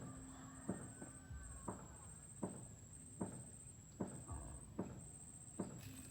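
A regular series of sharp knocks, a little more than one a second, over a steady high-pitched whine.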